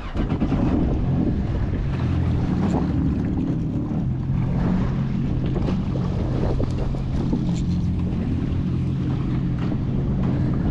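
Jet ski engine idling with a steady low hum, with wind buffeting the microphone.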